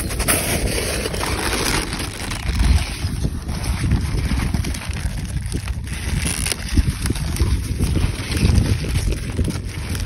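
Wind buffeting the microphone, a steady low rumbling noise that swells and dips.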